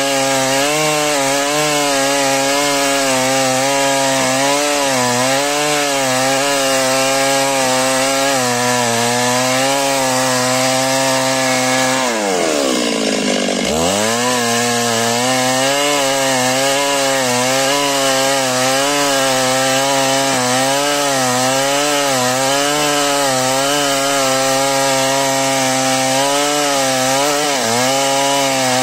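Two-stroke chainsaw ripping lengthwise through a squared timber beam, the engine running hard under load with its pitch wavering as the chain bites. About twelve seconds in, the engine drops sharply in pitch and revs back up, and it dips again near the end.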